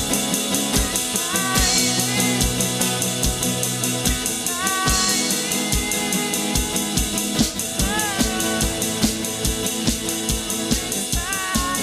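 Instrumental worship-band music: a drum kit keeps a steady beat with kick and snare under sustained bass notes, and a lead line slides up into its notes every few seconds.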